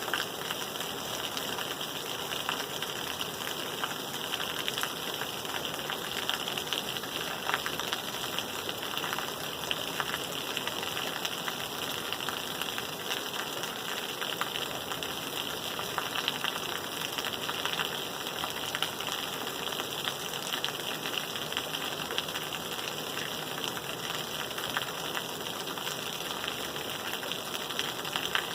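Steady rain falling, a continuous hiss with many small drop ticks.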